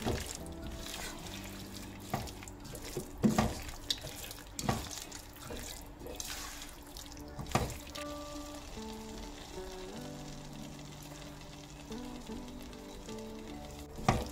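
Background music with held notes, over a silicone spatula scraping and knocking against a nonstick pan as fried cauliflower in sauce is stirred, the food sizzling. The knocks come several times, the loudest about three seconds in and again near the end.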